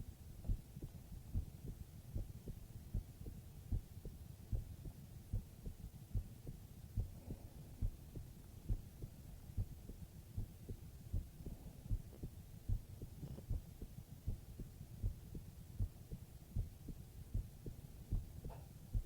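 Human heartbeat heard close up, as with an ear against the chest: steady low thumps at an even pace of about seventy beats a minute.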